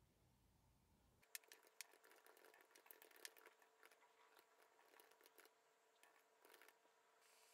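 Faint, quick irregular clicks and light taps, starting about a second in.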